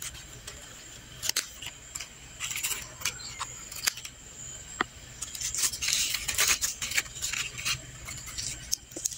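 Scissors snipping through the stalks of old leaves on potted Chinese cabbage: a few sharp, separate clicks, with rustling as the leaves are handled.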